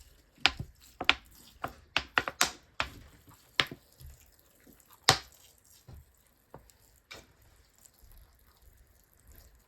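Water dripping and tapping onto a plastic seed-starting tray after watering: sharp, irregular drips that come quickly for the first few seconds and then space out.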